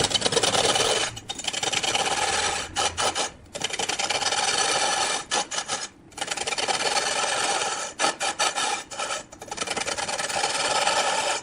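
Wood being cut on a lathe, a tool scraping and shaving the spinning wood in long passes broken by short pauses.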